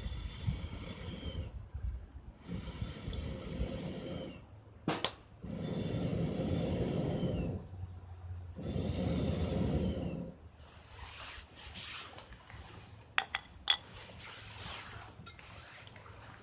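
Four long blowing hisses, each about a second and a half with a breath between, each carrying a high whistle that drops in pitch as the breath runs out: air being blown onto a bonfire. A few light clicks follow near the end.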